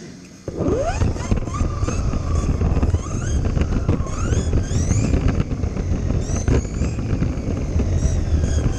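Kyosho Mini-Z small electric RC car driving with the camera riding on it: the motor and gears whine in pitches that rise and fall as it speeds up and slows, over a loud low rumble and rattling from the chassis and tyres. It starts about half a second in.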